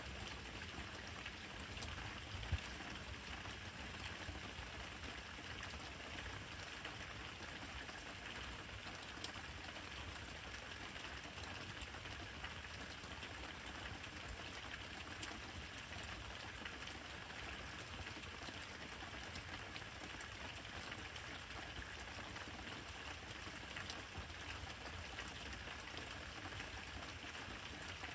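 Steady rain falling, an even hiss with one sharp tick about two and a half seconds in.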